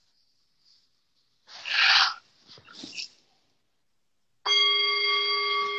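A short rush of noise about two seconds in, then near the end a brass singing bowl is struck once and rings on steadily with several clear overtones, marking the end of the pose.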